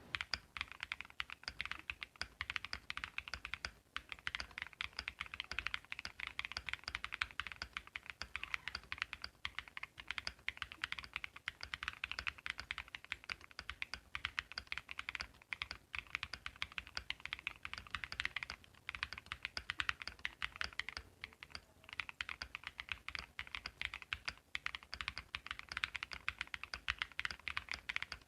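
Continuous fast typing on a QK60 R3 60% mechanical keyboard fitted with BSUN Milk Tea switches, a quick, uneven stream of key clacks.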